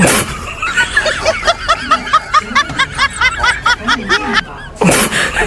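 A high-pitched snickering laugh: a quick run of short, pitched 'heh' sounds, about five a second, stopping shortly before the end, over faint background music.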